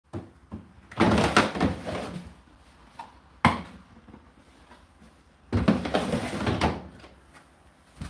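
Plastic parts of an Indesit condenser tumble dryer being handled at the open door: two spells of scraping and rattling, with a single sharp click between them.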